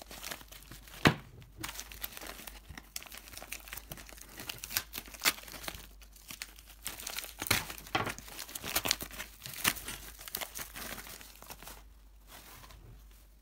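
Plastic postal mailer crinkling and rustling as it is handled and cut open with a blade, in irregular crackles and sharp snaps, the loudest about a second in. It goes quieter near the end as a foam pouch is drawn out of the bag.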